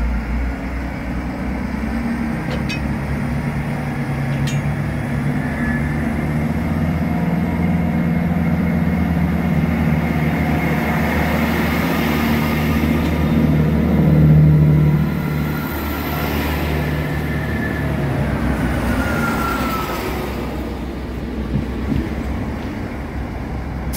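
Class 166 diesel multiple unit moving past along the platform, its underfloor diesel engines droning steadily with wheel and rail noise. The sound is loudest as the coaches pass close by about two thirds of the way in, then eases as the rear cab goes past.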